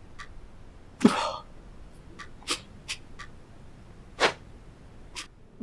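A man sobbing: a loud gasping sob about a second in, then short sharp sniffs and sobs, with a clock ticking faintly about once a second.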